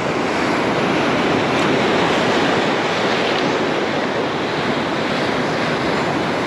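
Rough sea surf breaking and washing over a boulder shore: a steady, dense rush of white water.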